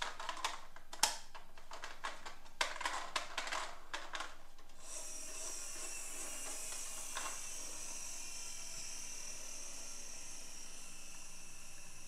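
Hard plastic toy vehicles clicking and clattering as they are handled over a cardboard box, then, about five seconds in, a steady high-pitched whir begins.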